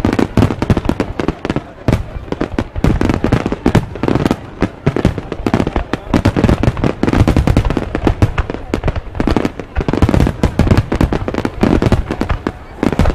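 Aerial fireworks display: a dense, continuous barrage of shell bursts and crackle, many bangs following one another with hardly a pause.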